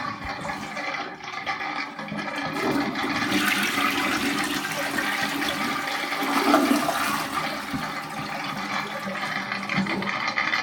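Water rushing through household plumbing as fixtures are left running to drain and depressurize the supply lines after the water is shut off. It swells louder for about four seconds in the middle.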